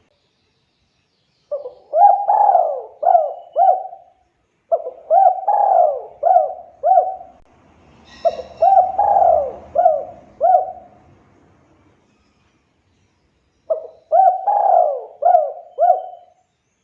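Spotted dove cooing: four loud phrases, each a quick run of five or six coos lasting about two and a half seconds. There is a longer gap before the last phrase.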